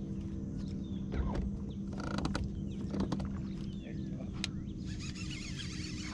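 Steady low hum from the bass boat's bow-mounted trolling motor, with birds chirping and calling over it. A short buzz comes about two seconds in, and the birdsong grows denser near the end.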